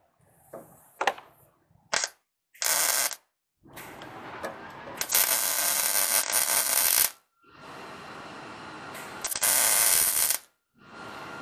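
Electric arc welder crackling in three short bursts, the middle one about two seconds long, as a steel flat bar is tack-welded to a car body. A quieter hiss runs between the bursts, and the sound cuts off abruptly several times.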